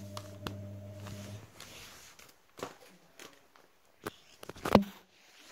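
Handling noise from a phone camera being moved about: scattered knocks and rubs, the loudest a bump near the end. A steady low hum cuts off about a second and a half in.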